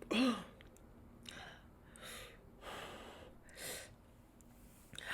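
A woman's short groan right at the start, then four heavy breaths about a second apart: panting from the burn of very spicy fried chicken.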